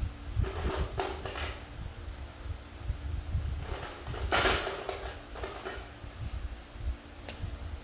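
Short metallic clicks and scrapes of a socket on an extension turning 12 mm bolts into a transmission cover plate, with a longer rasp about four and a half seconds in.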